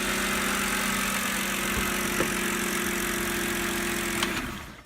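BMW 328i straight-six idling steadily with a new ignition coil on cylinder one: the earlier shaky misfire is gone. Near the end the engine is switched off and its sound dies away.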